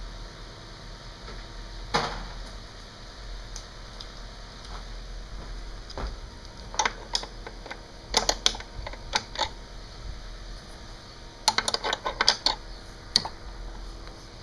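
Hand tools clinking and clicking against metal during work on a car: a single knock about two seconds in, then clusters of quick light clicks in the second half, over a steady low hum.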